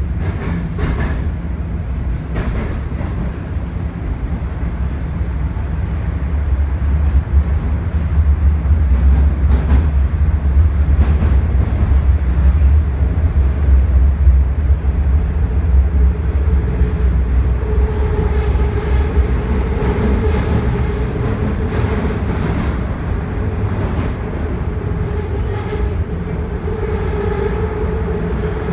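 Toronto subway car running between stations, heard from inside: a deep, steady rumble of wheels on track, with scattered clicks. About halfway through, a steady whine comes in.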